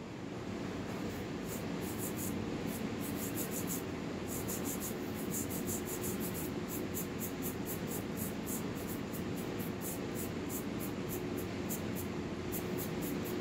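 A hand brush scrubbing over the bark edge of a plum-wood bowl, in quick repeated scratchy strokes that come in short runs, over a steady low hum.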